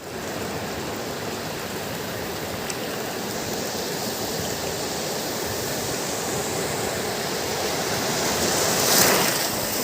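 Steady rushing noise, like wind or running water, swelling to a peak about nine seconds in.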